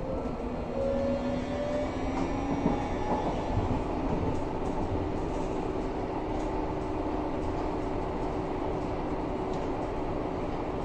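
Interior ride sound of a Berlin U-Bahn type H train car: a motor whine rises in pitch over the first few seconds as the train picks up speed, then settles into a steady hum over the rumble of wheels on rail, with a few faint clicks.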